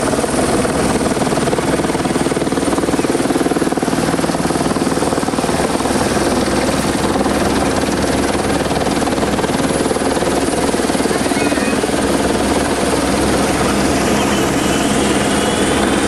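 A loud, steady mechanical drone holding one constant pitch, with the faint rising whine of a Formula E car's electric motor near the end.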